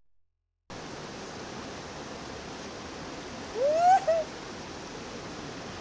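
Steady rush of flowing water from a spring, starting just under a second in. About three and a half seconds in, a short rising cry sounds over it, followed at once by a brief second one.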